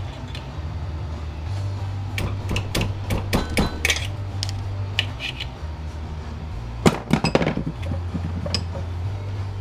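Metal doorknob parts of brass and steel clinking and being knocked while being broken apart. Irregular sharp clinks come about two to four seconds in, then a louder burst of strikes near seven seconds, over a steady low hum.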